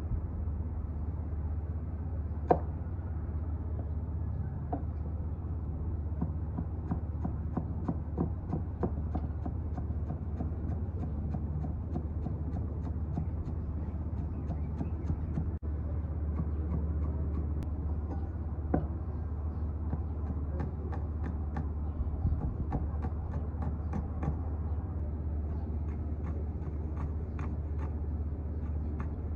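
A cleaver chopping spring onions and red chilies on a wooden butcher block: quick taps of the blade against the board, sparse at first and then in fast runs, with a few louder knocks. A steady low hum runs underneath.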